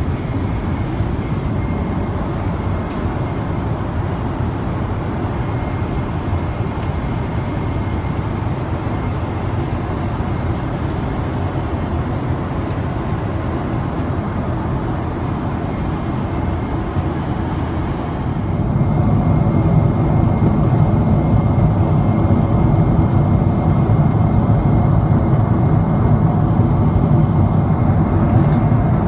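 Steady in-flight cabin roar of a Boeing 777-300ER airliner at cruise, the constant rush of air and jet engines, stepping a little louder about two thirds of the way in.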